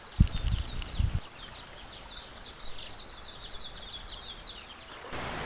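A small bird chirping in quick runs of high, short notes. Strong low thumps come in the first second, and a steady rushing hiss cuts in near the end.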